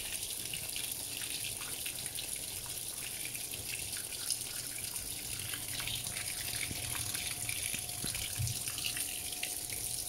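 Water pouring from the inlet of a Panasonic top-load washing machine into its drum as it fills for the wash, a steady splashing rush.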